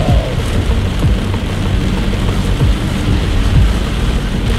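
Heavy rain pelting a moving car's windshield and roof in a monsoon storm, over a deep, uneven rumble of wind buffeting and tyres on the flooded road, heard from inside the cabin.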